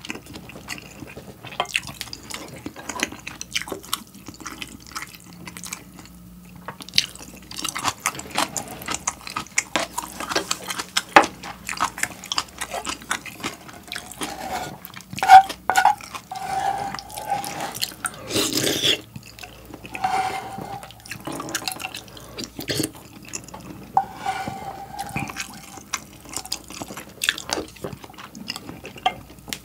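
A person eating ramen soup: a spoon scoops and taps in a saucepan, broth is sipped and slurped in short bursts, and there is chewing. Small clicks of the spoon and chopsticks recur throughout, and a louder slurp comes a little past halfway.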